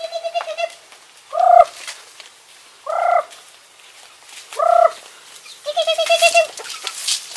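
Domestic fowl calling: a rapid warbling trill, then three short single calls about a second and a half apart, then another rapid trill near the end.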